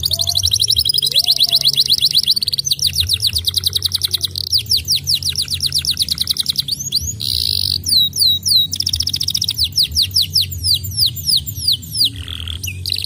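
Domestic canary singing rapid trills: long runs of fast, repeated falling notes, a short buzzy phrase about seven seconds in, then slower, spaced falling notes, over a low steady hum.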